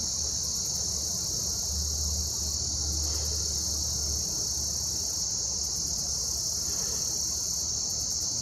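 Steady, high-pitched chorus of singing insects, an unbroken shrill drone that never pauses.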